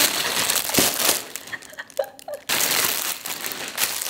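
Packaging being crinkled and torn open by hand: a rustling crackle for about a second, a lull with a few small sounds, then more crinkling from about two and a half seconds in.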